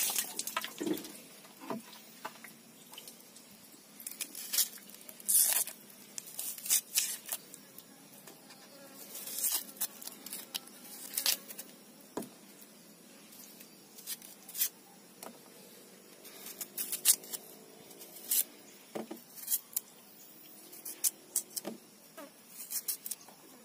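A red onion being handled and sliced with a kitchen knife held in the hand, without a cutting board: scattered short crackles, taps and clicks, coming in small clusters.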